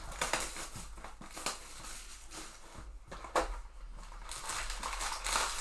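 Crinkling, tearing and rustling of plastic wrap and cardboard as a sealed trading-card hobby box is opened, in irregular crackly bursts with a few sharper snaps.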